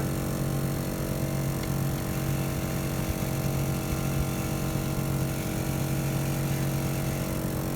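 Smittybilt 2781 12-volt portable air compressor running with a steady, even hum while it inflates a 40-inch tire from zero psi.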